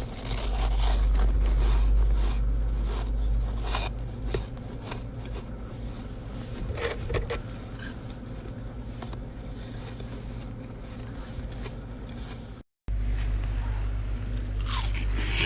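Frost ice being scraped from the wall of a chest freezer in short, irregular strokes, over a steady low hum. The sound drops out completely for a moment about three-quarters through, and louder scraping follows near the end.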